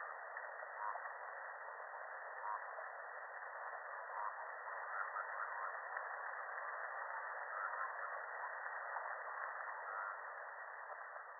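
Underwater recording of fish sounds: faint short clicks and brief pulsed knocks scattered irregularly over a steady hiss of sea noise, thin and radio-like in tone.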